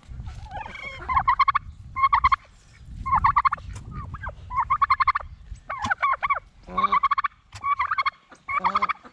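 Domestic turkey toms gobbling over and over, a short rattling gobble about once a second, with a low rumble under some of them.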